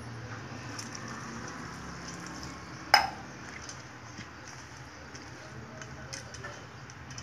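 A hand stirring and rubbing wet flattened rice (poha) in a steel strainer, a soft squishing rustle of the soaked flakes. About three seconds in, one sharp metal clink against the steel vessel, the loudest sound.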